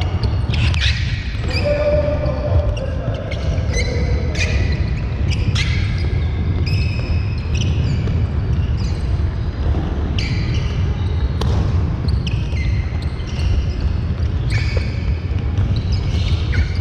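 A group of kids exercising on a wooden sports-hall floor: feet thudding and sneakers squeaking in frequent short chirps about once a second, over a steady low rumble.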